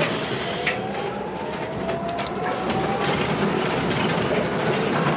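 Inside a moving city transit bus: steady engine and road noise, with a drivetrain whine that rises slowly in pitch over the first few seconds as the bus picks up speed. A thin high tone sounds through the first second.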